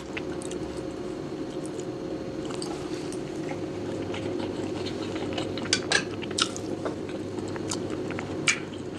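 Close-miked chewing of barberry rice and chicken: soft, wet mouth sounds with a few sharper lip smacks and clicks in the second half, over a steady low hum.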